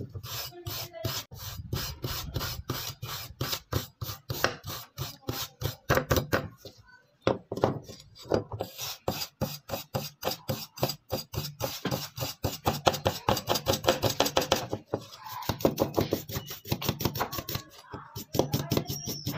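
Hand file scraping back and forth across a rusty axe head in quick repeated strokes, taking off rust. The strokes pause briefly twice.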